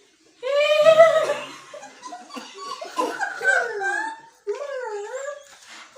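Human voices making silly sounds and laughing, in several bursts whose pitch slides up and down.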